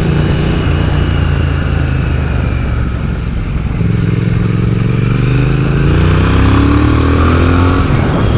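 Triumph Speed Twin's 1200 cc parallel-twin engine through megaphone silencers, heard from the rider's seat on the move. It runs fairly steadily at first, then about four seconds in the revs climb smoothly for several seconds as the bike accelerates out of a corner.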